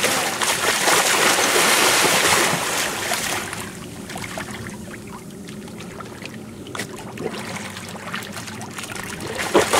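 Water splashing as a lemon shark thrashes at bait hung on a rope at the surface, loud for about the first three seconds. The water then goes quieter, lapping, and a splash comes again near the end.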